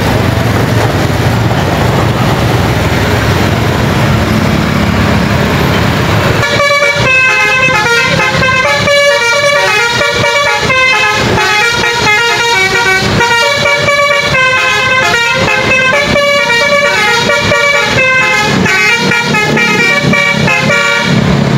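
Engine and traffic noise, then, about six seconds in, an SJM Trans Jetbus 5 tour bus's basuri telolet horn starts playing a fast melody of changing notes that runs on.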